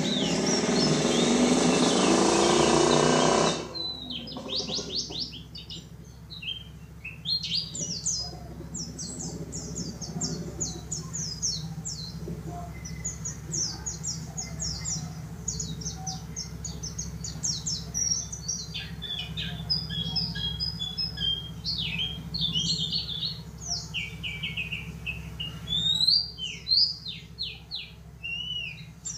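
A loud rushing noise for the first few seconds. Then a yellow-breasted white-eye (pleci dakun) sings long runs of rapid, high-pitched twittering trills and chirps with short breaks.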